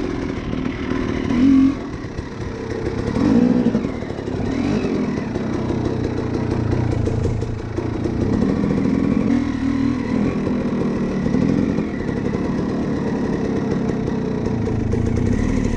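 250 cc two-stroke dirt bike engine running under load on a trail ride, its pitch rising and falling again and again as the throttle is worked, with loud surges about a second and a half and three and a half seconds in.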